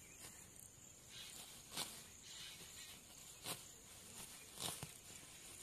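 Faint outdoor ambience: a steady high-pitched insect drone, with a few short soft knocks, two of them in quick succession near the end.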